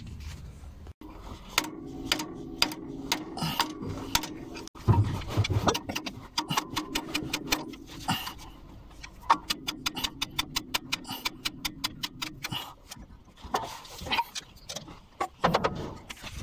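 Ratchet wrench clicking in quick, even strokes, about six clicks a second, while working a bolt on the excavator engine; the clicking stops about three-quarters of the way through. A steady low hum runs underneath.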